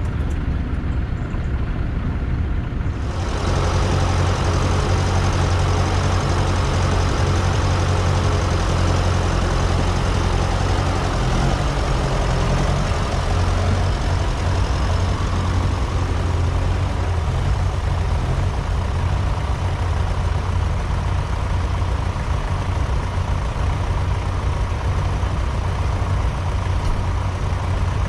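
A vehicle engine running steadily at a low, even pitch, growing louder and fuller about three seconds in.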